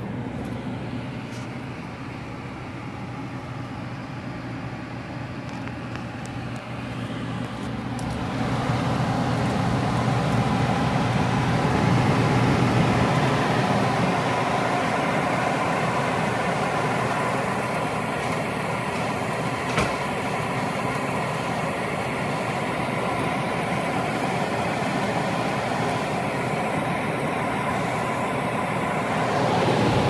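Air conditioner's indoor air handler running: a steady hum with a rush of air, louder from about eight seconds in.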